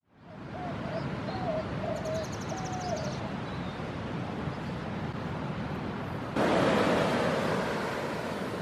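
Beach ambience: a steady wash of surf and wind on the shore, with a quick high rapid trill and a few short, lower bird calls in the first few seconds. About six seconds in, the surf noise jumps abruptly louder.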